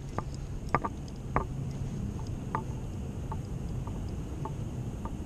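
Small splashes and drips of shallow creek water around a hand releasing a small brown trout: a dozen or so soft, irregular plinks over a low steady rumble.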